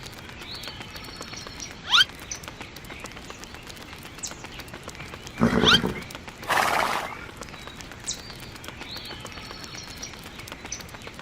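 Outdoor farm ambience: short rising bird chirps every couple of seconds over a steady background. A louder animal call comes near the middle, followed by a brief rushing noise.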